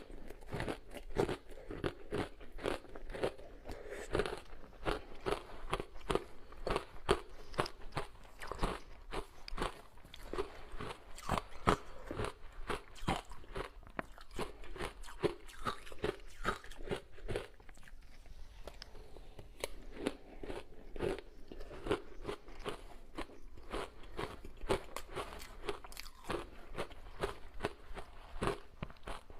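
A person biting and chewing ice, a steady run of sharp crunches and cracks, several a second, without a pause.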